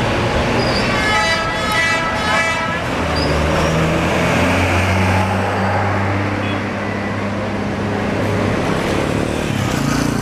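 A tour bus's 'telolet' multi-tone musical horn sounds for about two seconds, starting about a second in. Then comes the low drone of a bus's diesel engine as it pulls out.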